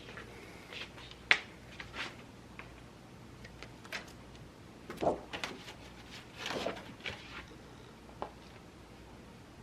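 Scattered clicks and knocks of a printer's plastic covers and parts being handled and opened, with one sharp click about a second in and bursts of rattling around the middle.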